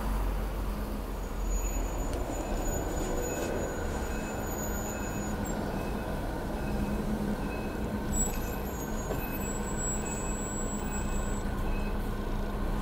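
Steady hum inside a stationary public transport vehicle waiting at a stop, with a short high beep repeating about twice a second from about two seconds in until near the end.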